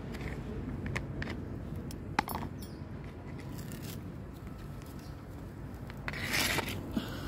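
Handling noises from a plastic tub of wet cat food: a few light clicks, one sharp click about two seconds in, and a brief scrape near the end, over a steady low outdoor background hum.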